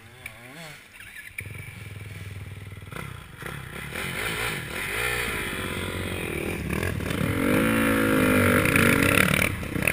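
Dirt bike engine revving up and down while riding a rough trail, its pitch rising and falling repeatedly and growing louder through the second half, with some clatter from the bike over the bumps.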